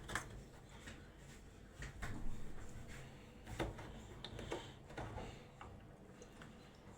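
Faint scattered clicks and light knocks of objects being handled, a second or so apart.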